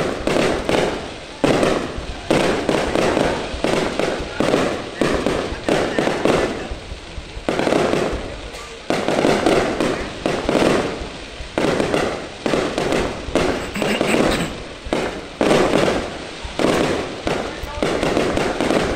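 Aerial fireworks display: shells launching and bursting in quick succession, one or two loud bangs a second, with crackling between them.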